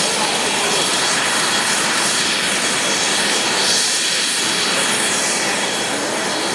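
UH-60 Black Hawk helicopter running on the ground with its rotor turning: a steady, loud rush of rotor and twin turboshaft engine noise with a thin high turbine whine over it.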